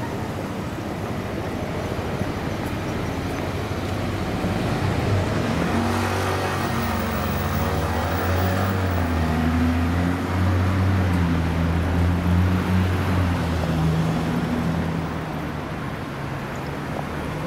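A motor vehicle's engine close by on a city street. It grows louder over several seconds, shifts in pitch and then fades away, over steady traffic noise.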